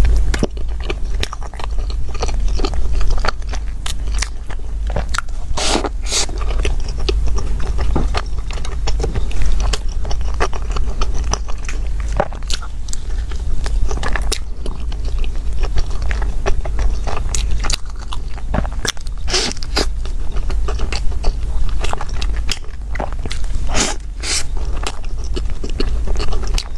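Close-up eating sounds of a person biting and chewing a soft dark bread bun: wet mouth noises with irregular crackles and sharp clicks, over a steady low hum.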